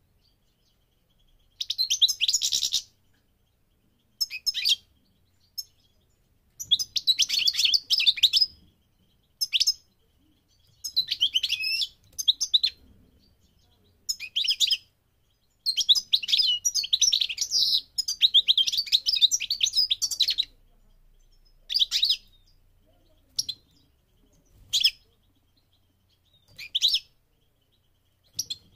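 European goldfinch of the parva race singing: phrases of rapid, high twittering and chirping notes, some under a second and the longest about four seconds, broken by short pauses.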